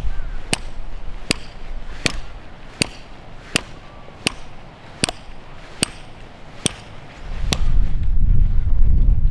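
Repeated sharp knocks, evenly spaced at about one every three-quarters of a second, like steady hammering or chopping. About seven seconds in, a loud low rumble swells up.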